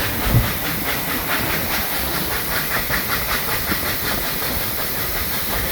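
Narrow-gauge steam locomotive hissing steam as the train sets off, a steady hiss with a fast, regular pulsing in it.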